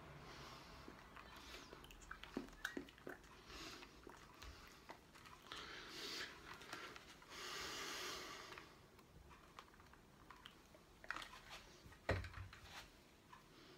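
Faint handling noise: scattered clicks and rustles of hands and clothing moving and of a black diving mask being handled, with a soft hiss lasting about a second just past the middle and a single knock with a dull thump near the end.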